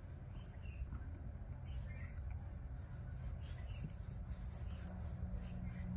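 Small pointed metal tool scraping and boring into a plastic PVC pipe by hand: faint, irregular scratching and small clicks as the point works a hole through the pipe wall.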